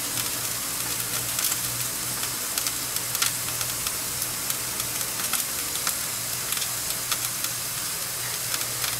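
Skewered meat and a red pepper half sizzling on the wire grate of a Severin PG 8545 electric grill: a steady hiss dotted with small crackles and pops, over a low steady hum.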